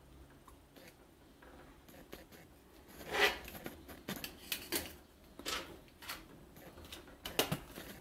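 Small plastic handling noises from a pocket digital cooking thermometer, its clear plastic probe cap and its plastic storage tube: a series of short clicks and scrapes starting about three seconds in, with the loudest click right after they start and a cluster of sharp ones near the end.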